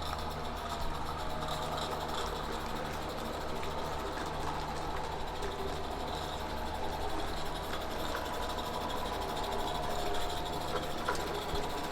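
A 16mm-scale garden railway model train running steadily along the track, a constant mechanical hum with a faint steady whine.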